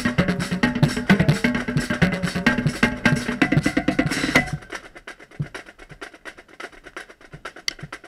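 Marching drumline playing a cadence, led by a set of five marching tenor drums (quints) whose rain-dampened heads ring less than usual. Dense, loud drumming with pitched drum tones gives way about four and a half seconds in to quiet, quick clicking.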